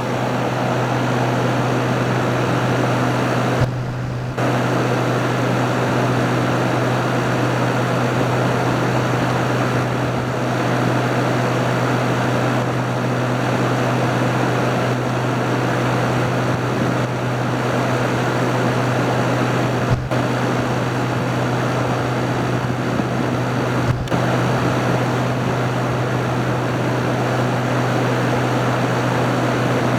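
Haier ESA410J-RGB window air conditioner running: steady compressor hum under the blowing of its fan. The sound dips briefly about four seconds in, and a couple of faint clicks come later.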